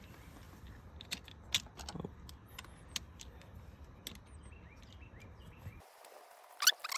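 Scattered small clicks and taps of screws and a plastic door-panel switch bezel being handled and fitted, with a couple of louder clicks near the end.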